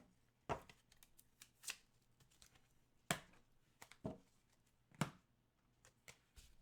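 Trading cards and their packaging handled on a table: scattered sharp clicks and taps, five of them louder than the rest, with light card rustle between.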